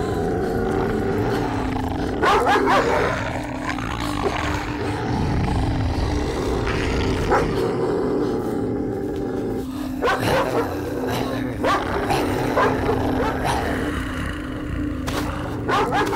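Dogs barking and snarling in several harsh outbreaks over a steady low hum.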